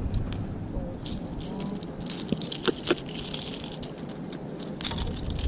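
Small clicks and rattles of a topwater fishing lure and its hooks being handled as a small jack crevalle is unhooked by hand. The clicks come in scattered clusters, busiest from about two seconds in and again near the end.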